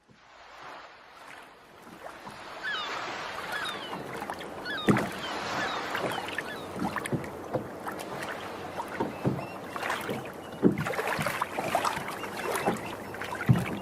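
Ambient sound around a boat: steady water and wind noise with scattered knocks and thumps, and a few short squeaky chirps a few seconds in.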